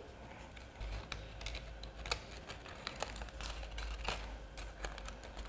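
Quiet, scattered light clicks and soft rustles of stiff papercraft paper being folded and pressed together by hand.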